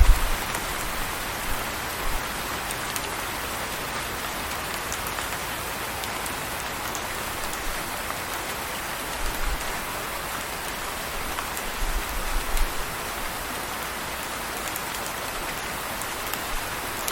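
Steady rain falling, an even hiss with scattered drop ticks, and a few brief low rumbles now and then.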